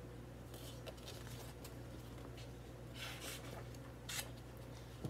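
Faint rustling of the paper pages of a picture book being handled and turned, a few short brushes of paper, the clearest about three seconds in. A steady low hum runs underneath.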